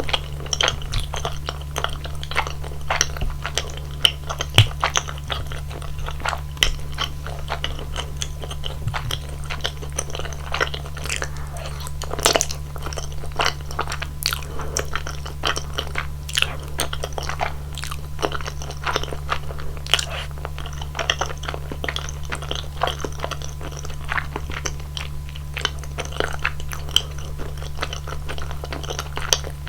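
Close-miked chewing of thick, creamy rosé tteokbokki (chewy rice cakes in sauce): a dense, irregular run of wet mouth clicks and smacks, over a steady low hum.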